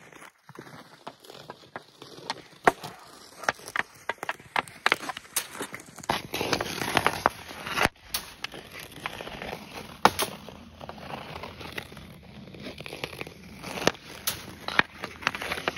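Hockey stick slapping pucks on outdoor ice: several sharp cracks of stick and puck, the loudest about 3 s and 10 s in, over the scrape of skate blades across rough ice.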